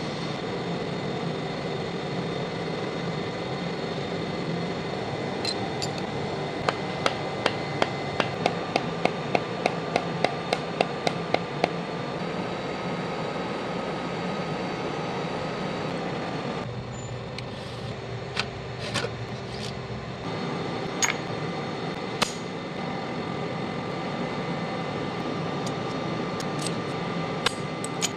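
Light hammer taps on a metal workpiece clamped in a milling-machine vise, over a steady hum of shop machinery. A quick run of about fifteen taps, some three a second, comes in the middle, then a few scattered single taps.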